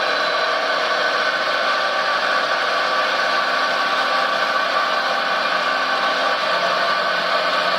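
Radio-controlled model construction vehicle running steadily: an even mechanical hum and whine with little bass, no change in pace.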